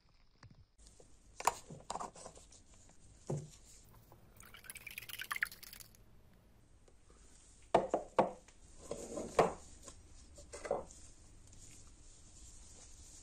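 Glass clinks and liquid dripping as a metal piece is handled in a glass jar of rust remover. After that, a handful of metal knocks as a small metal case is set into a cast-iron bench vise.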